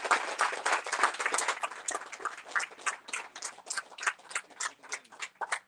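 Small audience clapping, dense at first and thinning to scattered single claps near the end.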